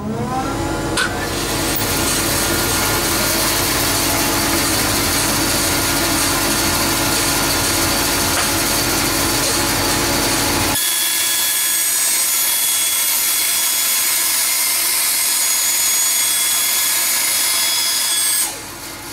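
Bandsaw starting up with a rising whine, then running while its blade cuts through a board of 6 mm laminate flooring pushed on a sliding table. About 11 s in the heavier, lower cutting noise stops abruptly as the blade clears the board, and the saw runs on with a steady higher whine. Near the end the sound drops in level.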